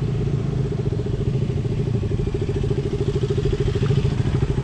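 Motorcycle engine running steadily with a fast, even pulse.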